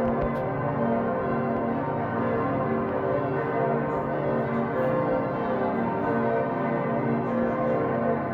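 Several church bells ringing together close by in a continuous peal, their overlapping strokes at different pitches blending into one unbroken sound.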